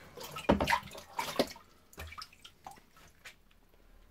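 Water splashing and dripping with a few sharp knocks and clatters in the first second and a half, then fainter drips, as a measuring jug is handled and filled with cold water for soaking a new oak barrel.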